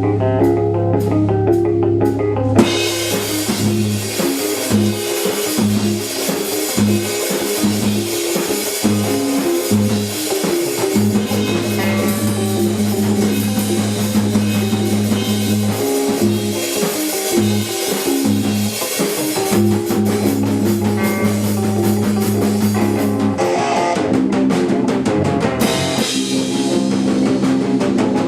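Live math rock / post-hardcore band playing: bass and guitar alone at first, then the full drum kit with cymbals comes in after about two and a half seconds; near the end the cymbals drop back and the guitars carry on.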